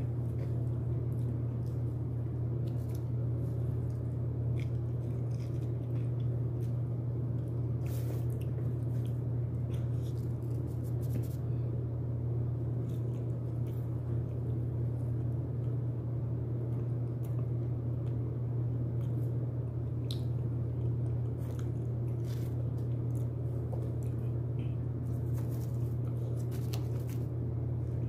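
Close-up eating of broasted fried chicken: biting and chewing, with scattered short crunches. A steady low hum runs underneath.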